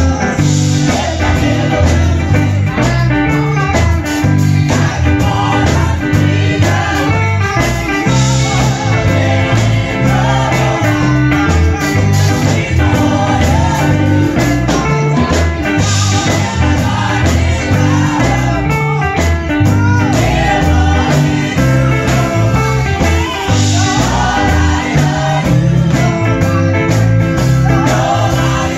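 Gospel vocal group singing together through microphones over amplified instrumental backing with a steady bass line.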